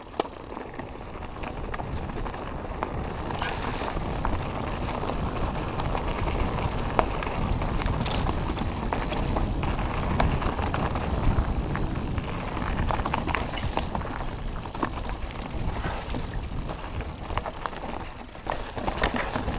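Mountain bike riding fast down a rocky trail: wind noise on the microphone with tyres on gravel and the bike rattling and clicking over rocks and bumps. It builds over the first few seconds and then holds steady.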